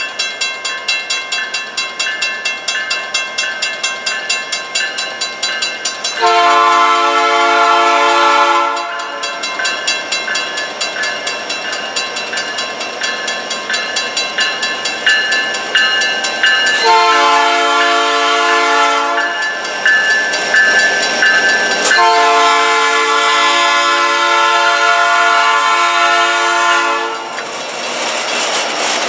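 Three-chime Nathan P3 air horn on a Providence & Worcester SD70M-2 locomotive sounding three blasts for a grade crossing, two of about two and a half seconds and a last one of about five seconds, as the train approaches. A crossing bell rings with rapid, regular strokes throughout.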